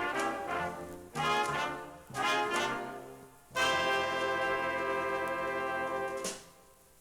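A school jazz stage band's brass section, trumpets and trombones, plays a few short punched chords and then holds one long chord for about three seconds before cutting off together. This is the final chord at the end of a tune.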